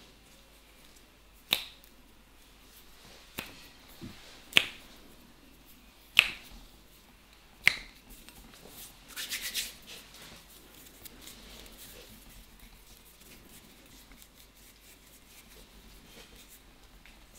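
Sharp snapping sounds from an Indian head massage: four loud snaps about a second and a half apart, with a couple of softer clicks between them. A quick flurry of small pops follows a little past halfway, then only faint rustle.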